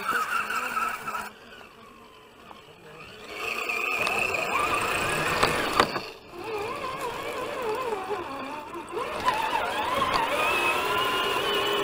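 Electric motor and gear whine of a radio-controlled scale crawler truck, heard from a camera mounted on the truck, rising and falling in pitch as the throttle changes. It drops away for about two seconds near the start, and a few sharp clicks come around the middle.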